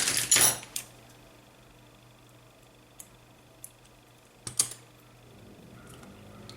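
Short rustle of a thermal pad and its packing being handled on a repair bench, then a faint steady hum with a couple of small ticks and another brief rustle about four and a half seconds in.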